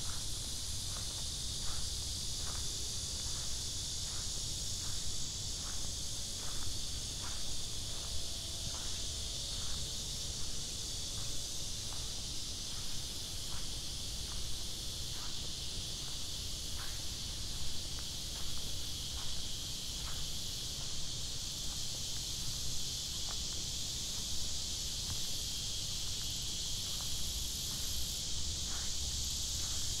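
A steady high-pitched drone of summer insects, with a walker's footsteps on the path at an even pace of about one and a half steps a second.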